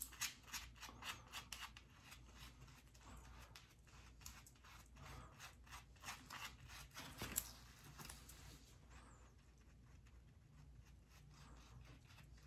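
Faint, quick rubbing strokes of gloved fingertips spreading Ghost Bond adhesive thinly over the skin base of a hairpiece, about three strokes a second, dying away after about eight seconds.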